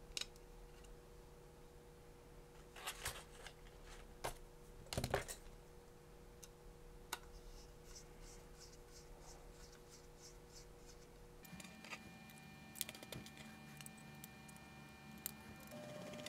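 Faint clicks and light metallic scraping of small M2.5 screws and a screwdriver as a board is screwed down onto its standoffs. About eleven seconds in, the background changes to a steady faint hum with a few held tones.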